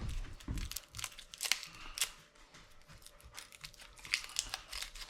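Irregular light clicks and ticks mixed with crinkling rustles, as of items and packaging being handled on a kitchen counter.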